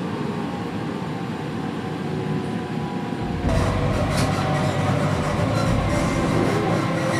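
A moving train's running noise. About three seconds in it turns louder and deeper, with a few clicks, as the train runs alongside a station platform.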